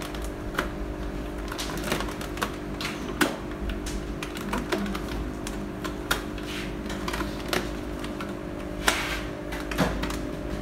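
Inflated plastic fish-transport bag crinkling and rustling in irregular clicks and crackles as its twisted neck is bound tight with a rubber band.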